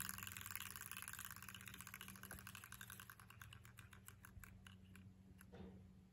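Homemade paper-and-cardstock prize wheel spinning down, its toothpick pegs flicking a paper pointer flap in faint rapid clicks. The clicks slow and space out, and the last one comes about five and a half seconds in as the wheel stops.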